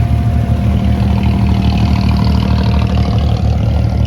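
An abra water taxi's engine running steadily under way, a low, evenly pulsing throb with a steady whine above it.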